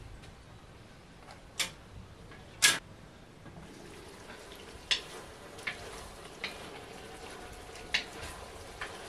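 Sharp knocks and clinks of a metal lid and a wooden spoon against a black cauldron (kazan), about seven in all with the loudest a third of the way in, over a faint steady sizzle of food frying in the pot that builds from about a third of the way in.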